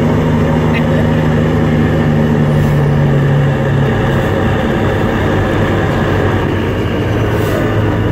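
Diesel truck engine heard from inside the cab while driving, a steady drone whose pitch drops about four seconds in.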